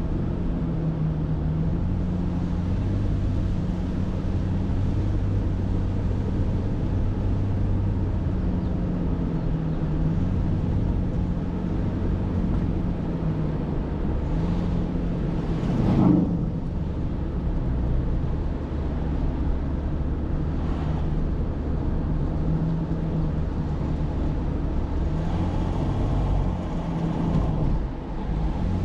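Car driving along a road: steady engine and road rumble, with a brief louder rush a little past halfway.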